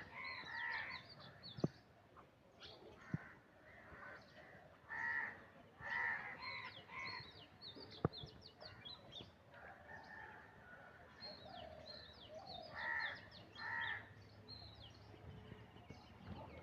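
Birds calling: short calls in clusters of two or three, heard three times, over scattered high chirping of small birds, with a few sharp clicks.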